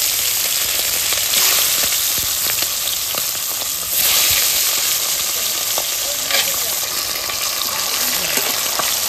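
Pomfret pieces frying in hot oil in a kadai, a steady loud sizzle that swells again about four seconds in.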